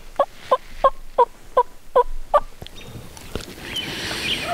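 A series of about seven turkey yelps, roughly three a second, each note dropping in pitch, stopping about two and a half seconds in.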